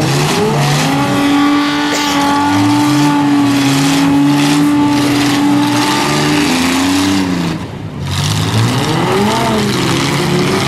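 Demolition-derby van engines revving hard, pitch swinging up and down, one held at high revs for several seconds before easing off and revving again.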